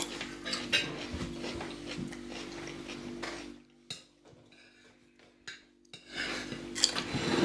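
Cutlery and plates clinking and scraping as people eat, over a steady low hum. The sound drops almost away for about two seconds midway, then the clinking picks up again.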